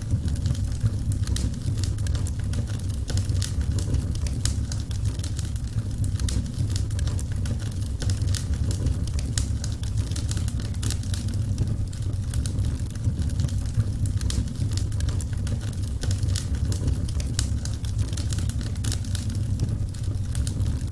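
Burning wood fire crackling: frequent irregular pops and snaps over a steady low rumble.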